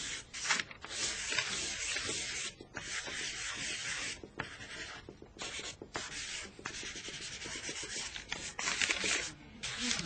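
Drawing stick scraping across a paper pad on an easel in a run of quick sketching strokes, each a raspy rub lasting up to a second or so, with short breaks between them.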